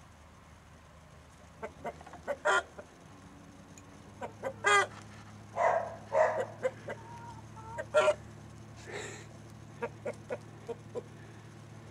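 Brahma chickens clucking: a string of short separate clucks and calls, the loudest about two and a half, five, six and eight seconds in. A low steady hum comes in at about four seconds.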